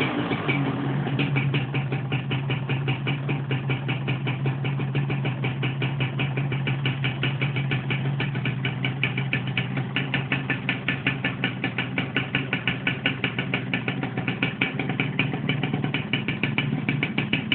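Two-stroke motorcycle engine dropping back from a rev right at the start, then idling steadily with an even, rapid pulsing beat.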